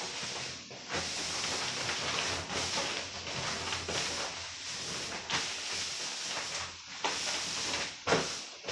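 Black see-through plastic mac rustling and crinkling as the wearer turns round in it, with one louder crackle near the end.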